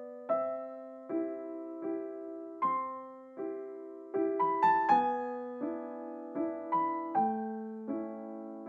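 Background piano music: a slow melody of struck notes over held chords, about one note a second, with a quicker run of notes in the middle.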